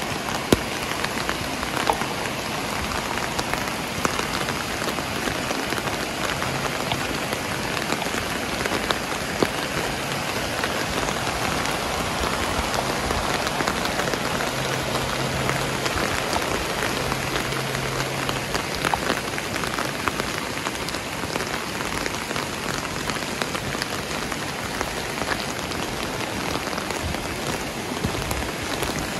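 Steady rain falling, with scattered drops ticking sharply on nearby surfaces.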